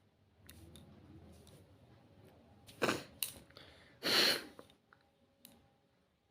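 A person sneezing: a sharp burst about three seconds in, then a longer one a second later.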